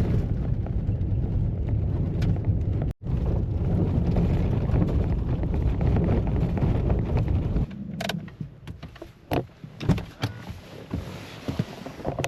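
A steady low rumble, cut off for an instant about three seconds in, that stops about eight seconds in and gives way to a run of irregular knocks and scuffs.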